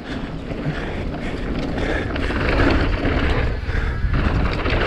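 Wind rushing over the microphone of a mountain bike rider's camera, with rolling trail noise from the bike, getting louder about two seconds in as the bike picks up speed.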